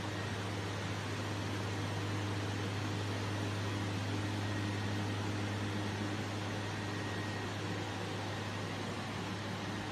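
Machinery of a PP meltblown nonwoven fabric production line running: a steady low hum under an even rushing noise, with a faint high whine.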